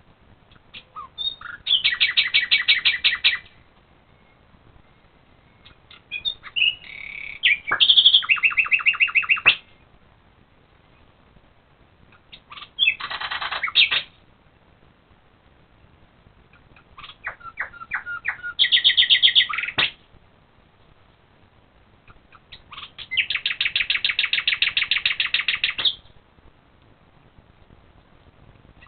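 A common nightingale singing at night: five separate phrases a few seconds apart, each a fast run of rapidly repeated notes lasting one to three seconds, some opening with a few spaced notes before the run.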